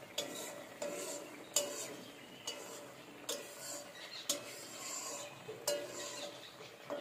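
A long-handled metal spatula scraping and knocking against an aluminium kadai as simmering fish curry is stirred. There is a sharp stroke roughly every second, over a steady faint hiss.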